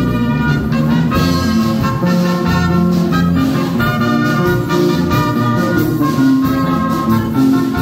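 Loud Latin dance music with a brass section playing held notes over a steady low beat.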